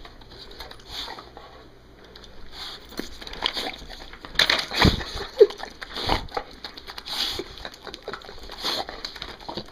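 Olde English bulldog's wet, smacking mouth and tongue noises from excitement: irregular slobbery smacks and clicks, busiest around the middle, with one brief squeak about five seconds in.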